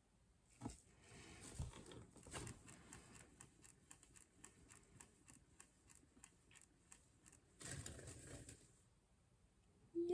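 Faint sounds of a cake-decorating turntable spun by hand: a knock as it is pushed off, a rushing stretch, then a regular run of light clicks, about three a second, as it turns. There is a short rustle near the end as it is brought to a stop.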